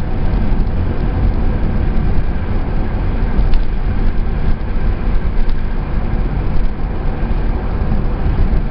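A car driving steadily along a road: a constant low rumble of engine, tyres and wind with no distinct events.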